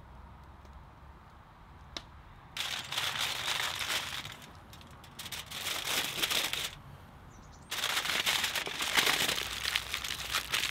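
Aluminium foil crinkling as it is folded by hand around a whole trout, in three bouts of a second or more each; the last, from about three quarters of the way in, is the longest and loudest.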